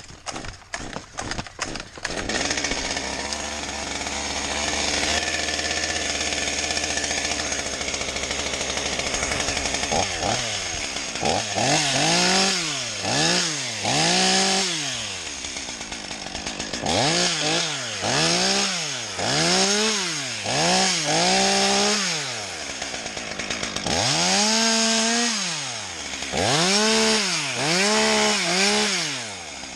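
A small engine, starting with a few sharp knocks, then running steadily. From about ten seconds in it is revved up and down over and over, each rev rising and falling in pitch over about a second.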